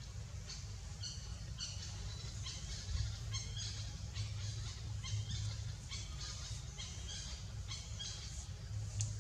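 Birds calling: short, high chirps repeating irregularly several times a second, over a steady low rumble.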